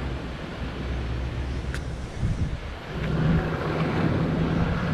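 Toyota Landcruiser 79 series' V8 turbo-diesel engine running as the four-wheel drive crawls down a rutted sand track. Its note rises and gets louder about three seconds in.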